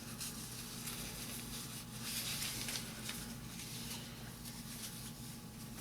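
Soft, irregular rustling and handling as a flag is unfolded and held up, strongest around the middle, over a steady low hum.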